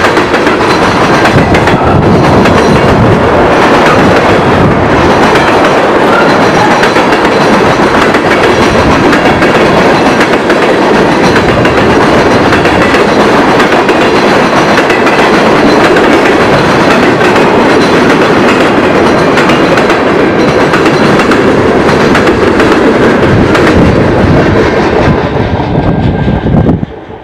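CN freight train of tank cars rolling past at close range, with a steady loud noise of steel wheels running on the rails. The sound falls away suddenly near the end as the last car goes by.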